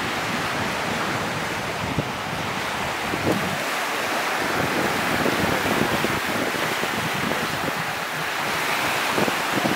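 Small waves breaking and washing up onto a sandy beach in a steady rushing surf, with wind buffeting the microphone in brief gusts.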